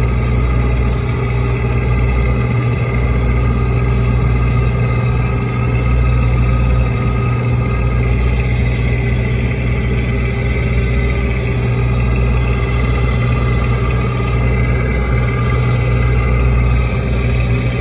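Small lobster boat's engine running steadily underway, a deep constant drone with the rush of water along the hull.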